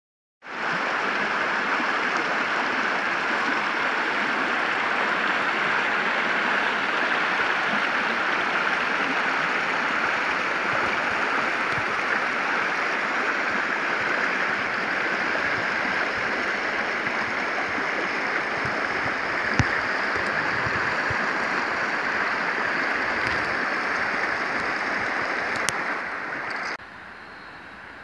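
Shallow creek water rushing and babbling over a rocky riffle, a steady even rush. It falls abruptly quieter about a second before the end.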